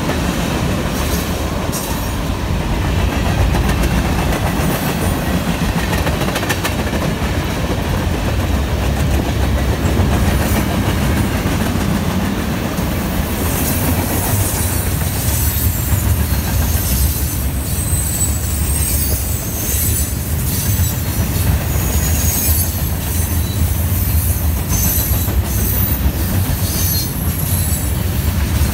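A long freight train's cars rolling past close by: tank cars, coil cars and gondolas rumbling and clattering over the rails. From about halfway a high-pitched wheel squeal joins in.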